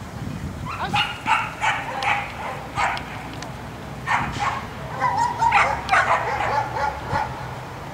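A dog barking over and over, in quick runs of short barks starting about a second in.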